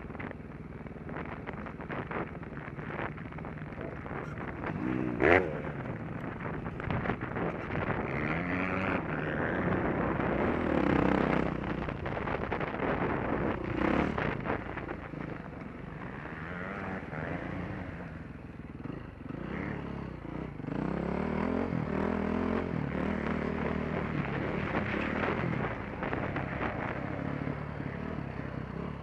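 Dirt bike engine being ridden hard, revving up and dropping back again and again as the rider goes through the gears and over the track. A sharp knock about five seconds in is the loudest moment.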